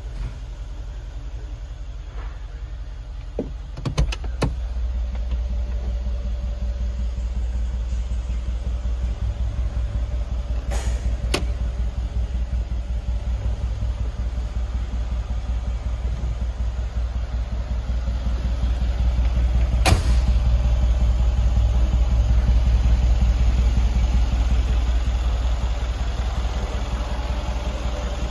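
Mercedes-AMG G63's twin-turbo 5.5-litre V8 idling steadily, a low rumble that grows louder in the second half. A few sharp clicks and knocks come about four, eleven and twenty seconds in.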